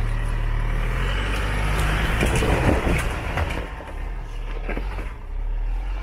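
4x4 pickup truck engine revving hard under load, starting abruptly at the outset, with a rush of noise through the middle.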